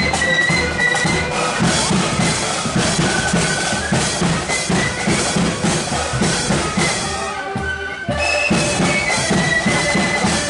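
Marching flute band playing a tune: high flutes carry the melody over bass drum and side drums beating steady march time. The music dips briefly about eight seconds in, then comes back full.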